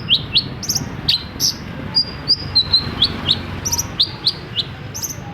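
Long-tailed shrike (cendet) singing a rapid run of short, sharp, high chirps, several a second, some sliding downward, over a low steady hum.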